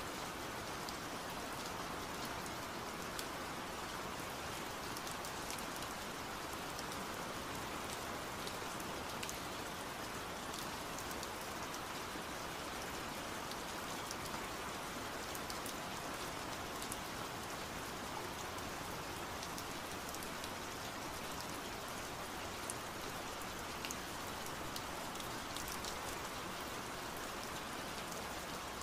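Steady rain noise with scattered drop ticks, an even wash that stays level throughout: a rain track of the kind used to cover the affirmations in a subliminal recording.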